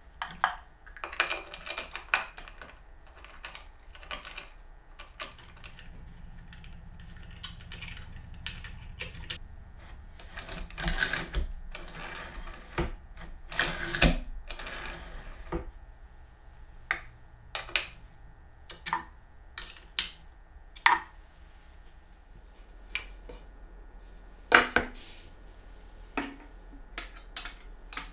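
Assembly handling sounds: scattered sharp clicks, taps and knocks of plywood parts and a metal bolt and washer being fitted, with a few short sliding rubs about halfway through.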